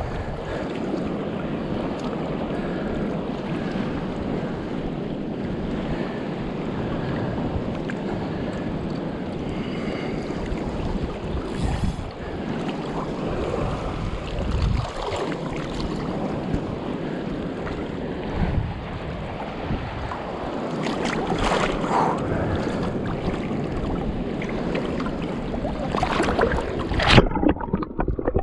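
Shallow water sloshing and splashing around someone wading and handling a submerged driftwood snag, with wind on the microphone. A few louder splashes, the biggest near the end, after which the sound turns suddenly muffled as the camera goes underwater.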